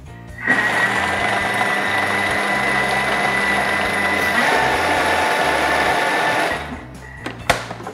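Countertop food processor's motor running at high speed with a steady whine, its blade churning roasted red peppers and walnuts into a thick paste. It starts about half a second in and stops abruptly about a second before the end, followed by a single sharp click.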